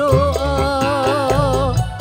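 Live dangdut band music: a bending, ornamented melody line over a steady drum and bass groove, with a male singer on microphone.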